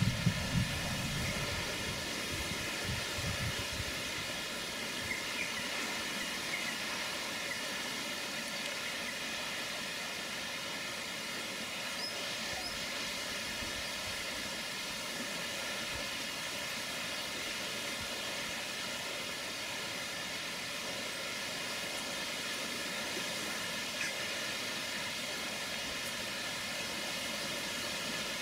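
Steady outdoor background hiss, with a few low thumps in the first second.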